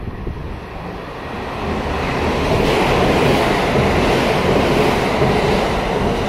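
Marine Liner rapid EMU train, JR Shikoku 5000 series with JR West 223 series cars, running through a station at high speed without stopping. The rush of wheels on rail and moving air swells over the first couple of seconds and stays loud as the cars sweep past.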